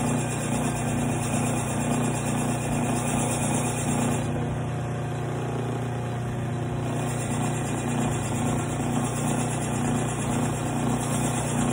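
Belt sander motor running steadily with a leather strop belt, a Kelly Flint Edge axe's edge being stropped on it; the high hiss of steel on the moving leather drops out for a couple of seconds in the middle while the axe is lifted off the belt, then comes back.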